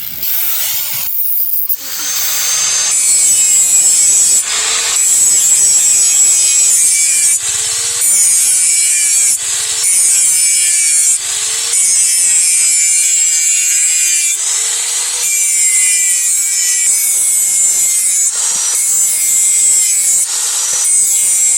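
Electric grinder grinding a steel knife blade: a loud, harsh scraping hiss in long passes, with a short break every two seconds or so as the tool lifts off and its motor tone rises again.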